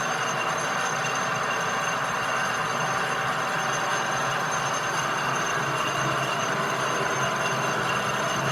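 Steady mechanical noise, a continuous hiss with a constant hum and a few high whining tones, unchanging throughout.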